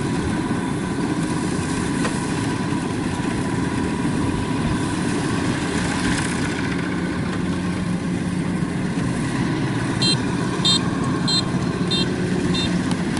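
Kubota DC-93 combine harvester's diesel engine running steadily under load. Near the end, five short high electronic beeps sound about 0.6 s apart.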